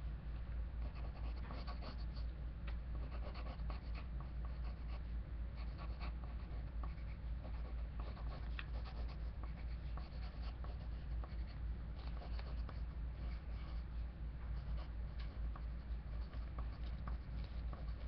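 Pencil scratching on paper in short, irregular strokes while drawing, over a steady low hum.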